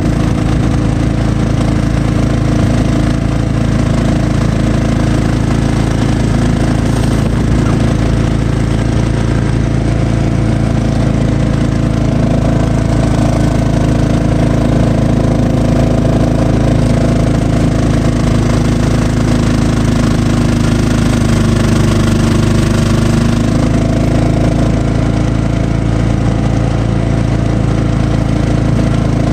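Cub Cadet XT1 lawn tractor engine running steadily, powering its three-stage snow blower attachment.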